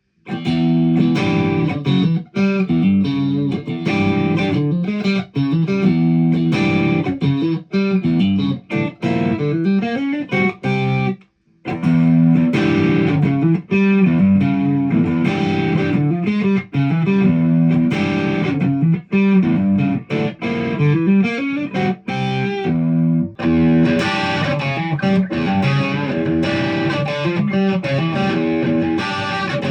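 Ibanez Prestige RG1070PBZ electric guitar being played, a continuous run of notes that stops briefly about eleven seconds in. From about two-thirds of the way through, the tone turns brighter.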